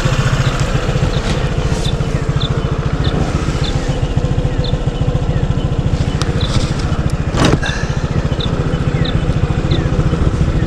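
Honda ADV150 scooter's single-cylinder engine running steadily under way. A short burst of noise comes about seven seconds in.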